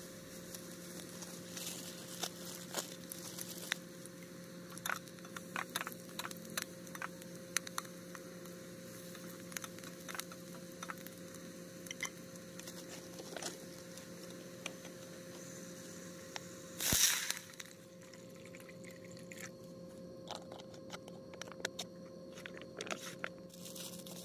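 Onion pieces frying in oil in a camping pot on a gas stove, crackling with many small pops as they are stirred. About two-thirds of the way through, water is poured into the hot pot with a brief loud hiss, and the crackling dies down after it.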